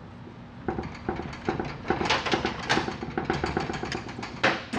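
Ratchet wrench clicking rapidly as the 10 mm bolt holding a TH350 transmission's speedometer housing is backed out, with a louder metal clack near the end.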